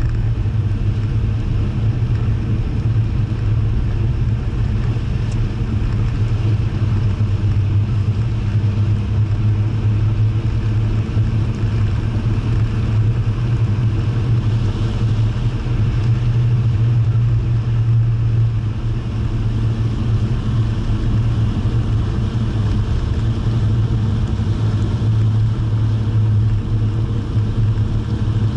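Jaguar E-type engine running at steady cruising speed, a continuous low drone mixed with road and wind noise, heard from inside the car.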